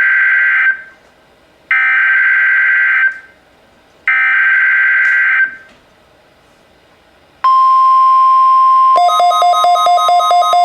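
NOAA Weather Radio SAME alert header: three screeching bursts of digital data, each about a second and a half long, signalling a new emergency alert. About seven seconds in, the steady single-pitch warning alert tone starts. About nine seconds in, a weather-alert radio's own rapid beeping alarm, about five beeps a second, joins it.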